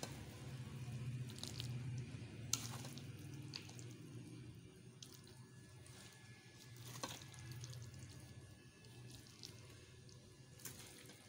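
A serving spoon scraping and tapping inside a steel pot as thick daal is dished out, a few scattered clicks over a steady low hum.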